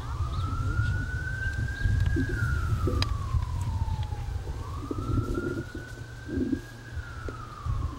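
An emergency vehicle siren wailing, its pitch rising slowly for about two seconds and then falling for about two seconds, twice over. A steady low rumble runs underneath.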